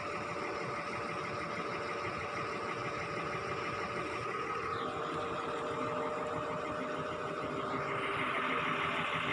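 A crane's engine running steadily while it lifts a load, getting a little louder near the end.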